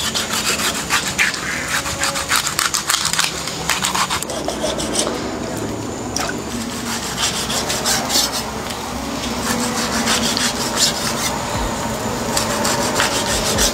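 A cleaver scraping and cutting through a large fish on a wooden chopping block, in many short rasping strokes as the flesh is filleted and sliced.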